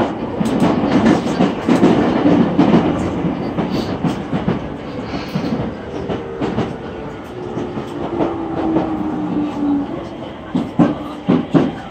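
Inside a JR East E231-800 series commuter train slowing into a station: running rumble with wheels clacking over rail joints. A faint motor whine falls in pitch as the train brakes, and a few sharp knocks come near the end.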